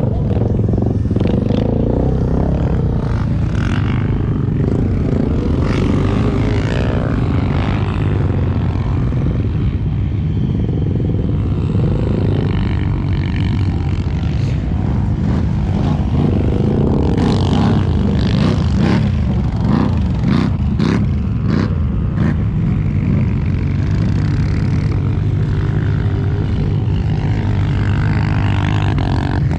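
ATV engine running steadily, with no sharp revving.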